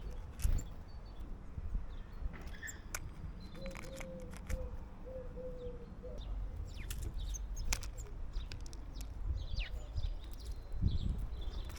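Garden birds at a seed feeder: scattered short high chirps and sharp clicks, with a dove cooing a phrase of about five low notes a few seconds in, over a steady low rumble.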